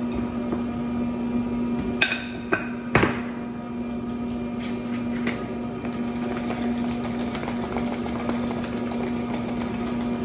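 A steady low hum throughout, with two sharp knocks about two and three seconds in.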